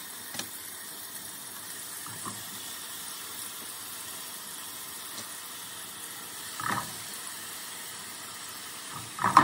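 Steady hiss of oil heating in a pan, with a few brief handling sounds as raw bacon strips are pulled apart; the loudest of these come near the end.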